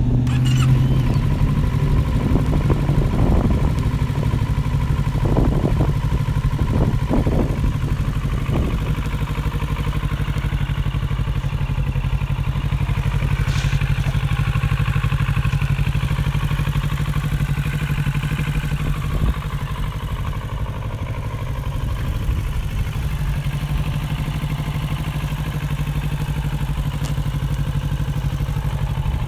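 2017 Kawasaki Z650's 649 cc parallel-twin engine idling steadily.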